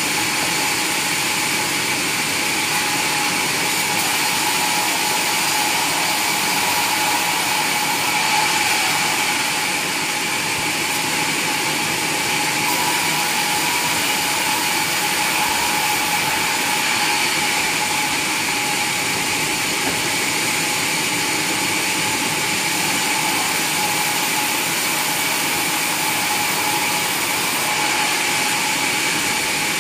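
Sawmill saw machinery running steadily, a constant high whine over a dense mechanical noise that keeps an even level throughout.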